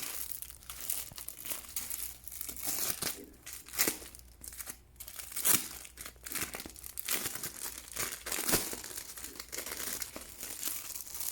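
Packaging crinkling and rustling as it is pulled off an item by hand, in irregular crackles with no steady rhythm.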